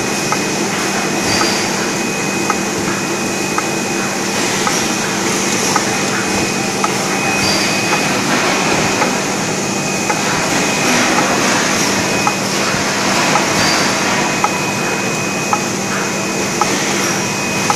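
BOPP wrap-around bottle labelling machine running steadily: a continuous machine hum with a thin high whine over it, and short sharp clicks about once a second as PET water bottles feed through the starwheel and along the conveyor guides.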